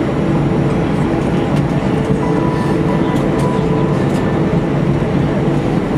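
Steady cabin noise of an Airbus A319 airliner taxiing: jet engines running at idle under a deep, even rumble and rush of air, with a faint steady whine partway through.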